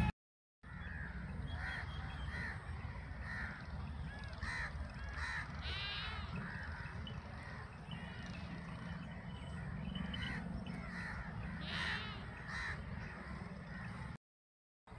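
Several crows cawing over and over in short, harsh calls, with a steady low rumble underneath.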